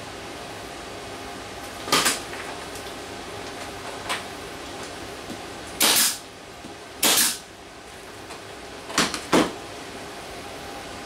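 Pneumatic brad nailer fastening the plywood box: sharp shots, each with a short hiss of air, about two, six and seven seconds in, then two more sharp knocks close together about nine seconds in. A low steady hum runs underneath.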